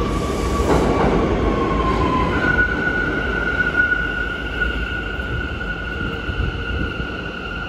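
R179 New York City subway train pulling into a station, its wheels rumbling on the track as it slows along the platform. A high whine sounds over it, dipping slightly in pitch and then stepping up to a steady, higher tone about two seconds in.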